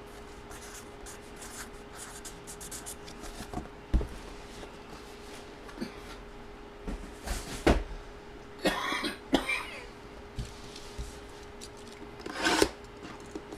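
Trading cards and their packaging being handled: light rubbing with scattered small taps and a few louder knocks, over a faint steady hum. A short cough comes about nine seconds in.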